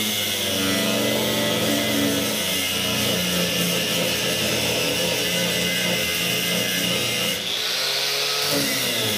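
Angle grinder working the sheet-steel body side of a Suzuki Samurai, a steady high, gritty whine, with background music under it. About seven and a half seconds in the grinder comes off the metal briefly and its whine rises before it bites again.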